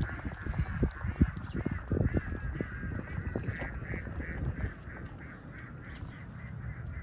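An animal calling in a quick run of short repeated notes, about three to four a second, over irregular low knocks and thuds that fade out by the middle.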